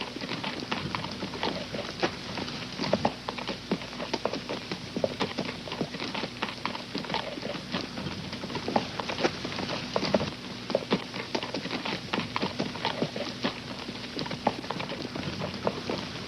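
Horse walking at a long, steady pace, its hooves clip-clopping in an unbroken run of sharp knocks.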